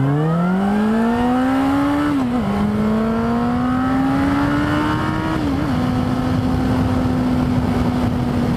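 Motorcycle engine accelerating hard through the gears: the pitch climbs, drops at an upshift about two seconds in, climbs again, drops at a second upshift past the five-second mark, then holds a steady cruise, with wind rushing over the helmet microphone.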